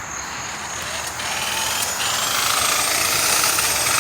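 Adjustable-speed 7-inch electric buffer spinning up about a second in, its whine rising, with a screwdriver held against the spinning pad to scrape off dried-on compound, which gives a rough, hissing scrape.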